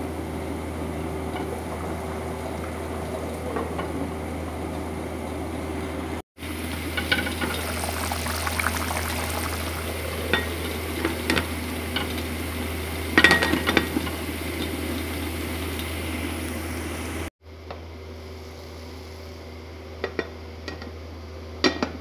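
Covered pot simmering on a gas stove over a steady kitchen hum, with sharp clinks of a glass pot lid being handled, most in the middle and again twice near the end.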